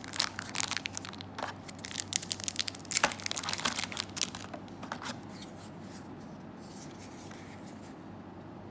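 Thin clear plastic wrap crinkling and tearing as it is peeled off a streaming stick, in quick crackly rustles for about five seconds. The sound then gives way to quiet room hiss.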